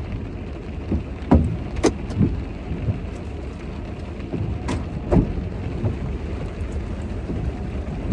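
Rain falling on a car, heard from inside: a steady low rumble with scattered sharp ticks of heavier drops striking.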